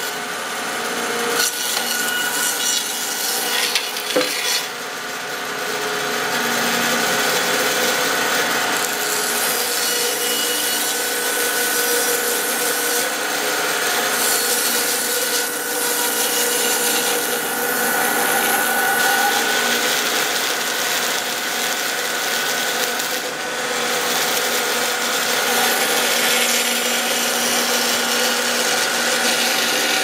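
Band saw ripping lengthwise through a log fed on a Little Ripper sawmill sled: a steady cutting sound over the saw's hum, with a sharp knock about four seconds in.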